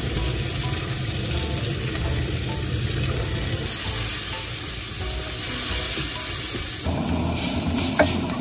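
Cabbage and other vegetables sizzling as they are stir-fried in a hot pan, with the hiss of a handheld kitchen blowtorch played over them to sear in a smoky fire flavour (bulmat). A single short knock near the end.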